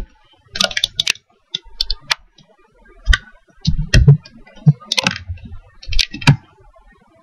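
Computer keyboard and mouse clicking: irregular sharp clicks in small clusters, some of them with a dull knock beneath.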